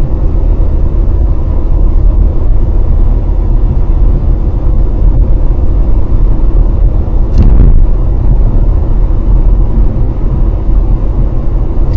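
Loud, steady low rumble of a car, with one short, sharper noise about seven and a half seconds in.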